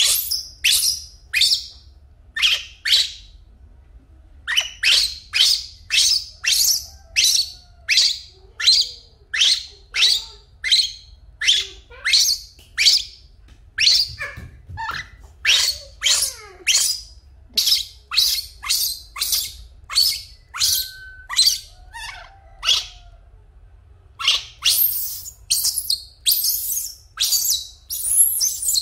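Baby macaque crying: shrill, short calls repeated one to two a second, each sliding down in pitch, with a couple of brief pauses.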